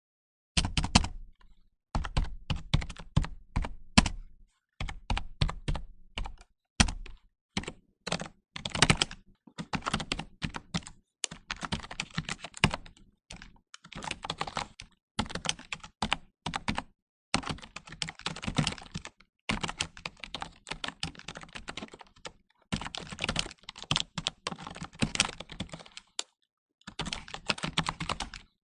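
Rapid typing on a computer keyboard: fast runs of key clicks broken by short pauses.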